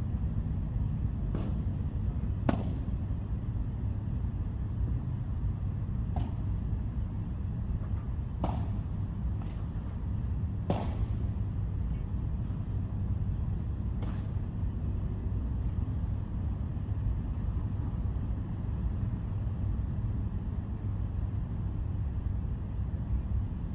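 Padel ball struck by rackets in a rally: about seven short, sharp pops one to three seconds apart during the first half. Under them runs a steady low rumble and a thin, continuous high-pitched whine.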